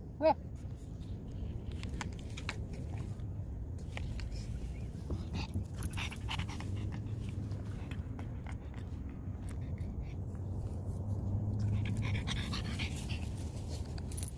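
Dog panting close to the microphone, with a brief high-pitched cry right at the start.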